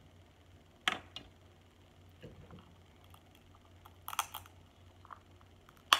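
Snow crab shell cracking as the meat is picked out: a sharp crack about a second in, a quick cluster of cracks around four seconds in, and another crack near the end.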